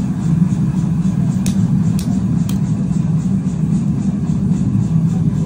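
Steady low drone of forge machinery running, with three sharp metallic clicks about half a second apart near the middle.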